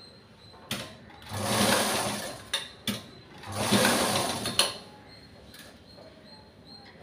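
Black straight-stitch sewing machine stitching a seam in two short runs of about a second each, with sharp clicks before, between and after the runs.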